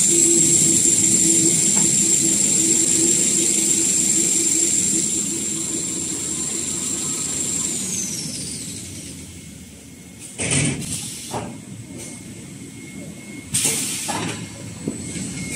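Tissue-paper rewinding line machinery running with a high steady whine over a low hum; the whine falls away about eight seconds in as the machinery slows. Two short hissing bursts follow, one about ten and a half seconds in and one near fourteen seconds.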